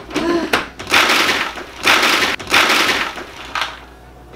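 Large food processor starting up the moment its lid is locked on, because its on button was already pushed down, its blade chopping crackers into crumbs in three loud gritty stretches with short breaks before it stops near the end.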